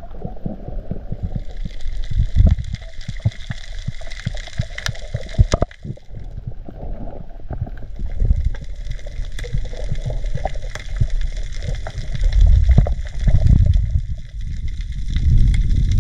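Underwater sound picked up by a diver's camera while swimming over a reef: water sloshing and gurgling against the microphone in irregular low surges, with scattered sharp clicks.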